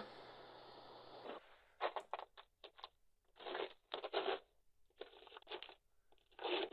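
Footsteps crunching through snow, heard as short crunches in uneven clusters through a security camera's microphone. Before them, a steady hiss with a low hum cuts off abruptly about a second and a half in.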